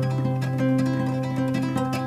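Background music with plucked string instruments, guitar-like, over a sustained bass note.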